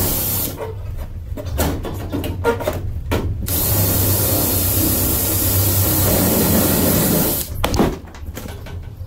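DeWalt cordless drill drilling into aluminum boat framing. A steady whir stops about half a second in, then come a few seconds of clicks and knocks from handling the work. A second run of about four seconds stops sharply and is followed by a short clatter.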